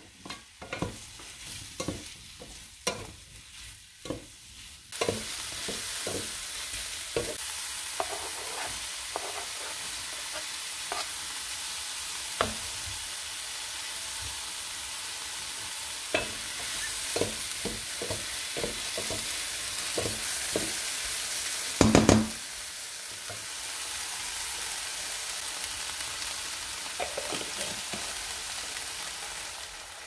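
Sliced mushrooms frying in a pan, stirred and scraped with a wooden spatula. At first there are only scattered clicks from the spatula; about five seconds in a steady sizzle starts and keeps on under the stirring. A loud knock comes about two-thirds of the way through.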